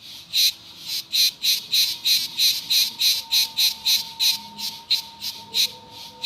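Cicada singing in a fast, even series of shrill buzzing pulses, about three a second, with a fainter steady whine beneath.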